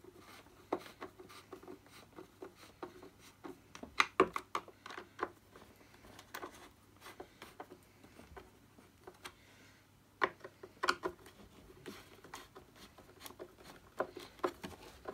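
Hand screwdriver driving screws into the plastic housing of an Electrolux 502 vacuum cleaner: scattered small clicks and scrapes of screwdriver and plastic, with louder bunches of clicks about four seconds in, around ten seconds and near the end.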